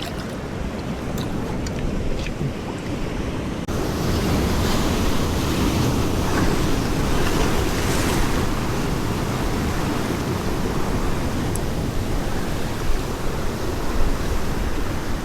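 Ocean surf washing against coastal rocks, a steady rushing noise with wind rumble on the microphone. It gets louder about four seconds in and then holds steady.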